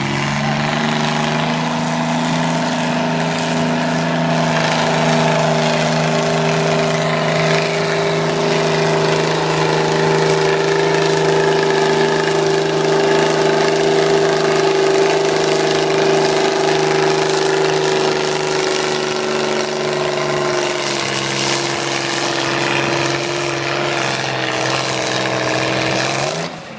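Tractor engine running at full throttle under heavy load while pulling, a loud steady engine note that climbs in pitch at the start, sags slightly about three-quarters of the way through, and is cut back sharply near the end as the pull finishes.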